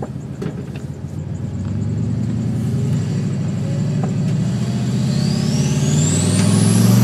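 Turbocharged Ford Mustang accelerating, its engine note climbing steadily under throttle. From about five seconds in, the turbocharger's whistle rises quickly in pitch as it spools up to boost.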